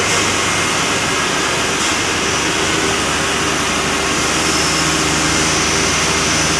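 Running PVC pipe extrusion line: a steady machine hum with several low and mid tones under a loud, even hiss.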